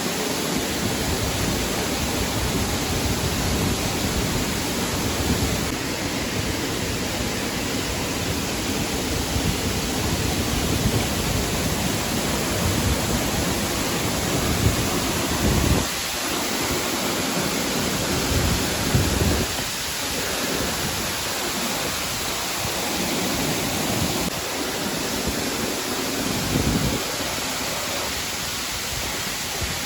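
Waterfall rushing: a steady, loud hiss of falling water, with low rumbles that come and go.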